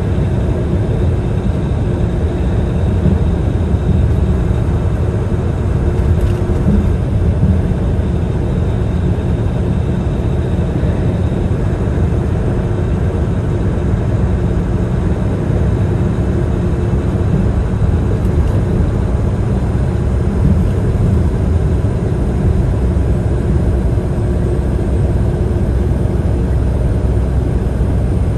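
Steady low rumble of engine and road noise heard inside a vehicle's cabin while it drives at highway speed.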